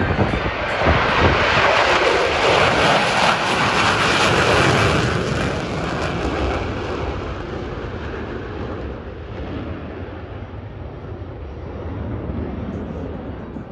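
Jet engines of a four-jet formation passing in a low flyby: a loud rushing noise that builds to a peak in the first few seconds, then fades steadily as the jets fly off into the distance.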